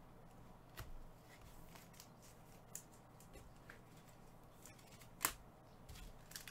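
Quiet handling of trading cards by gloved hands: soft sliding and a few light clicks and taps, the sharpest one about five seconds in.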